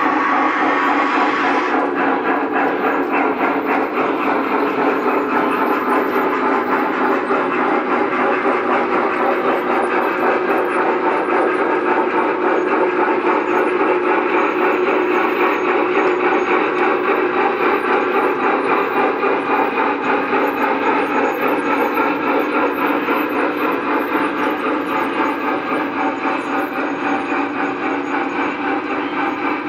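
Lionel O-gauge model trains running on the layout's track: a steady, loud rolling rumble of wheels and motors with a fast clatter. A high hiss drops away about two seconds in.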